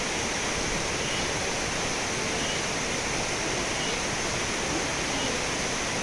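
Waterfall pouring down a rock face into a pool, a steady, even rush of falling water.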